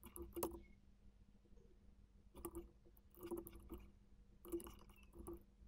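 Faint clicking of a computer mouse in a few short quick clusters, over near silence, as faces are selected in the modelling software.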